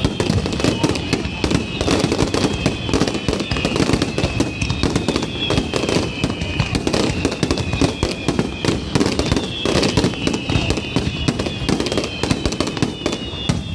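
Fireworks finale: a continuous dense barrage of shells bursting, with rapid bangs and crackling, and high whistling tones sliding slowly downward.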